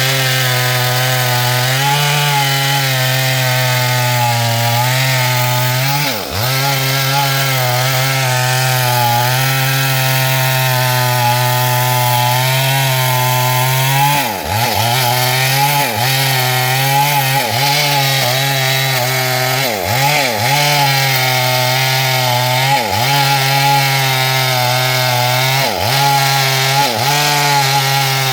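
Stihl MS 382 two-stroke chainsaw running at high revs, cutting through wood under load. The engine pitch dips briefly and recovers once early on, then every second or two in the second half.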